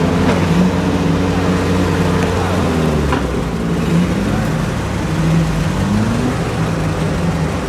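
Off-road 4x4's engine running near idle, its revs rising briefly about six seconds in.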